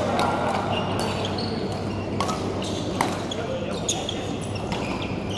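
Badminton rackets striking shuttlecocks: several sharp, short hits a second or so apart, ringing in a large sports hall over a steady background of play and distant voices.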